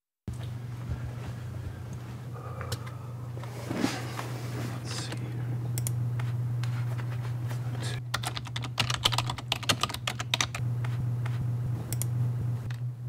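Typing on a computer keyboard: a quick flurry of key clicks about eight seconds in and a few more near the end, over a steady low hum.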